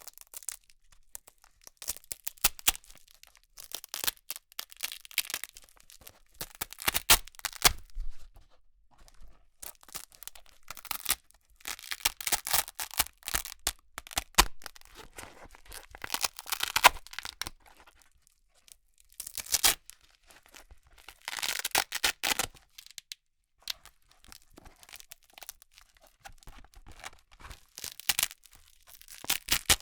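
Hook-and-loop fastener (Velcro) being ripped apart again and again, each crackling rip lasting a second or two with short pauses between.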